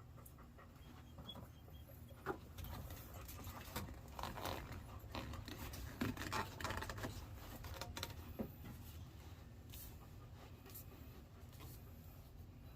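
Faint scattered clicks, taps and scrapes, like small objects being handled, over a low steady hum.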